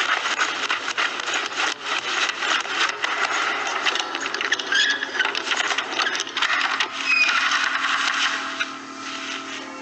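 Dense, rapid clatter of knocks and rattles, a busy run of film sound effects, easing off near the end as a steady low tone comes in.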